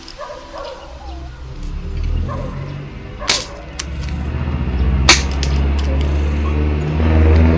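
Sharp snaps of target shooting at a range, the loudest about three seconds in and again about five seconds in, with smaller ones between, over a steady low hum.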